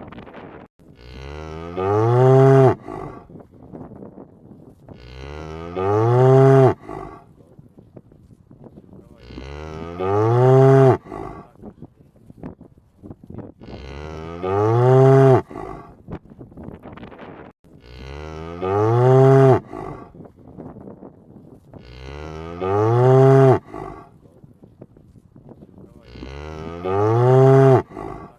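Cow mooing: the same long moo comes seven times at an even pace of about one every four seconds, each rising in pitch at the start and then held.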